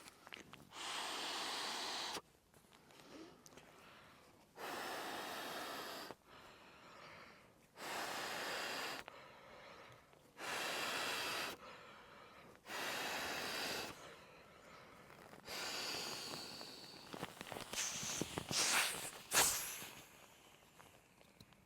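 Air being blown into an air mattress by mouth: six long, forceful puffs of a second or so each, with short pauses between them for breath. A few sharp clicks and rustles of handling follow near the end.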